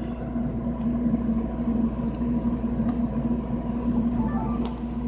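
Steady low background hum throughout. About four seconds in, a short run of faint electronic beeps at stepped pitches from the Sony DCR-SR42 Handycam powering on, followed by a click.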